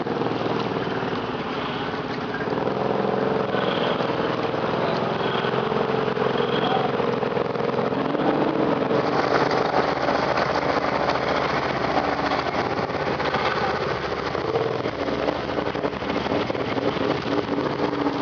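ATV engines running on a trail ride, their engine note rising and falling a little as the throttle changes.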